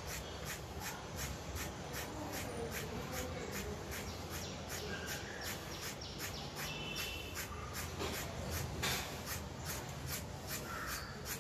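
Steel scissors snipping again and again through a thick bunch of long hair in a ponytail, about three to four crisp snips a second.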